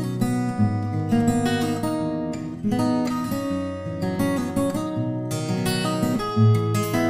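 Lowden S35 small-body acoustic guitar, Adirondack spruce top over Cuban mahogany back and sides, played solo: a steady stream of plucked notes and chords, each ringing on into the next.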